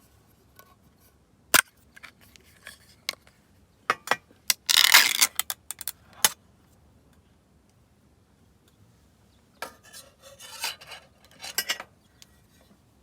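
Small objects being handled: sharp clicks and knocks, with a loud burst of scraping about five seconds in and another stretch of scraping and clicking near the end.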